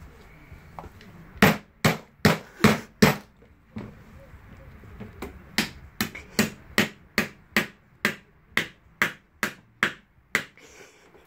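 Small hammer tapping a steel ball bearing into the hub of a plastic scooter wheel to seat it: five quick blows, then after a short pause a steady run of about a dozen more, two or three a second.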